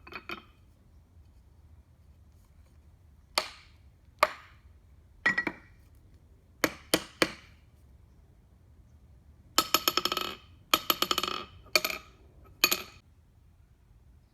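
Hammer blows on steel with a bright, clinking ring. The first blows are spaced singly and in pairs. About two-thirds of the way in come two quick rattling runs of rapid taps, each under a second long, followed by two last single blows.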